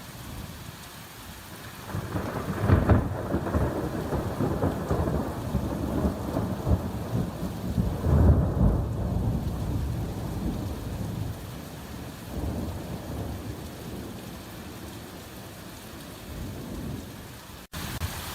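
Hard rain falling steadily, with a long roll of thunder that breaks about two seconds in, swells again a few seconds later and rumbles away over some ten seconds. The sound cuts out for an instant near the end.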